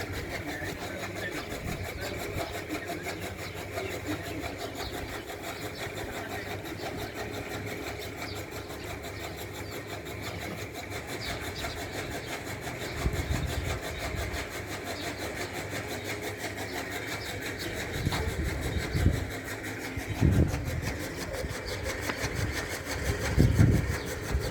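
A steady mechanical hum, like a running engine or motor, with a few short low rumbles in the second half.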